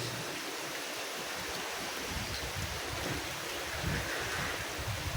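Storm wind and rushing water, a steady roar of noise with the wind buffeting the microphone.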